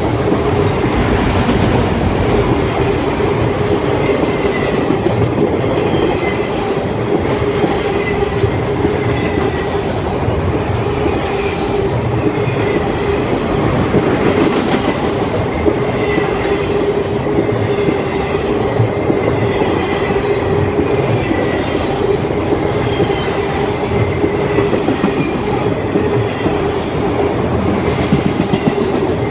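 Enclosed autorack freight cars rolling past at close range: a loud, steady rumble of steel wheels on rail, with short high-pitched wheel squeals several times.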